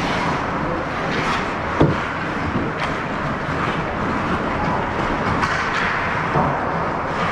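Steady ice rink ambience with a few sharp knocks, the loudest about two seconds in.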